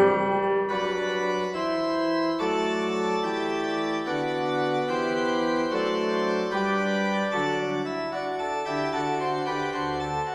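Background music on an organ-like keyboard: sustained chords with the notes changing every second or so.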